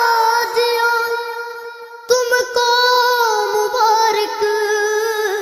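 A singing voice holding a long, gently wavering note in a devotional Urdu song, fading briefly about two seconds in and then carrying on.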